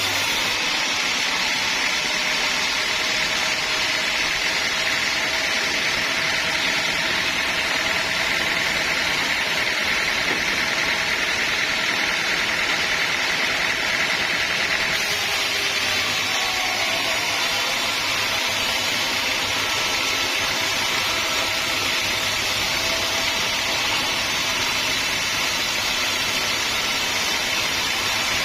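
Band sawmill running steadily. A strong high hiss in the noise stops about halfway through while the machine keeps running.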